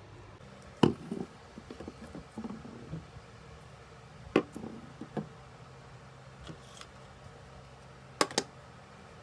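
Small objects being set down and shifted on a hard glossy shelf: a few sharp knocks with light clatter about a second in, another knock around four and a half seconds as a bottle is placed, and a quick double knock near the end as a computer mouse is put down.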